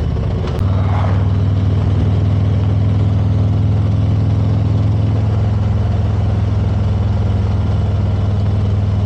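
Motorcycle engine running steadily at cruising speed with road and wind noise, a low even drone that dips briefly just after the start and then holds steady.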